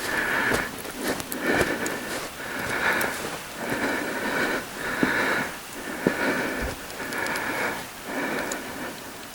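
A man's heavy, rapid breathing, a breathy rush about every three quarters of a second: he is out of breath from walking up a steep snowy incline. Small clicks of footsteps in snow come through it.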